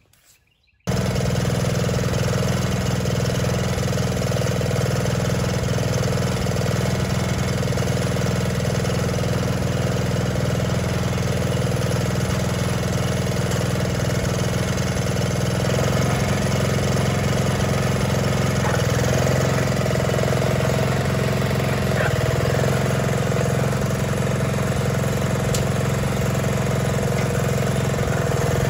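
1972 John Deere 110 garden tractor's single-cylinder engine running steadily while the tractor is driven. The sound comes in abruptly about a second in and its tone shifts a little past the halfway point.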